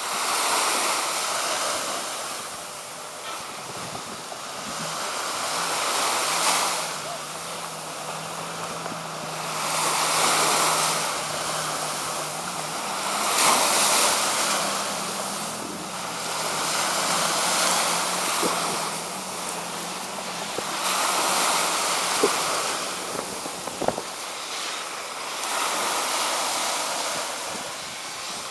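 Small waves washing in on a sandy shore, the surf rising and falling every few seconds, with wind buffeting the microphone. A faint, steady low engine hum runs under the surf through the middle part.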